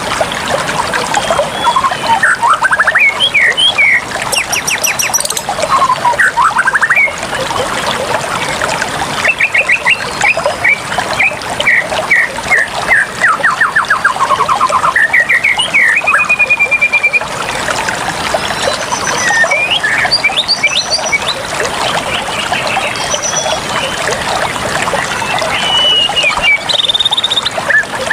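Steady running water, with birds calling many times over it in quick repeated notes.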